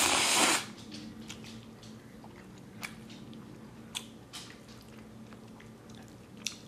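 A loud slurp of instant black bean paste noodles for about half a second at the start, then chewing with a few small sharp clicks and smacks.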